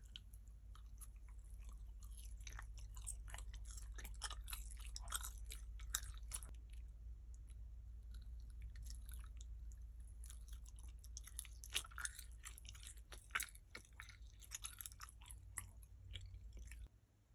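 Close-miked chewing of gummy candy pizza: many small sticky clicks and smacks in two busy stretches.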